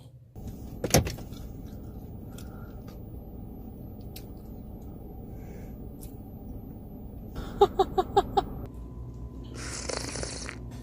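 A steady low background hum with a sharp click about a second in. Near the end, a person's voice makes a quick run of five short, high squeaky sounds, followed by a breathy rush.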